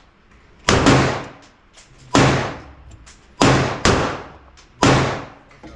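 Firearm shots at a shooting range: about five sharp reports at an uneven pace, each trailing off in a ringing echo.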